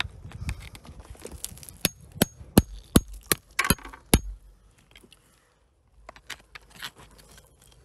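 Hand tool striking rock: a quick series of about seven sharp, clinking strikes over two and a half seconds, several with a brief ring, followed after a short pause by lighter taps.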